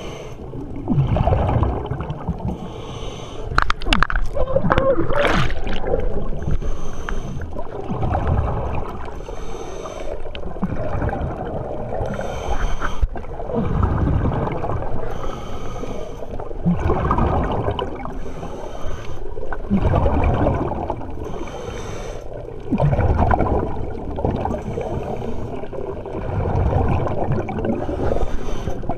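Scuba diver breathing through a regulator, heard underwater: a hiss on each inhale and a rush of bubbling on each exhale, repeating every two to three seconds.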